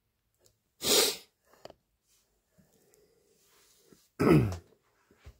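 A person sneezing twice, about a second in and again just after four seconds; the second sneeze is voiced and falls in pitch.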